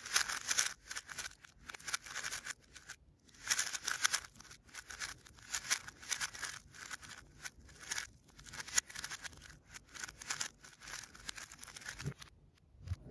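Plastic 3x3 speed cube being turned fast, its layers clicking and rasping in quick bursts with short pauses. Near the end come two soft low thumps as the cube is set down on the timer mat.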